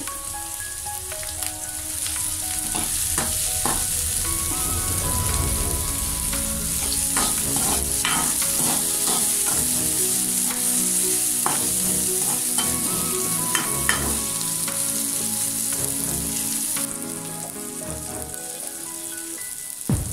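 Shallots, green chillies, ginger, curry leaves and garlic sizzling in hot oil in a metal kadai, with a metal spoon scraping and clicking against the pan as they are stirred. The sizzle eases near the end.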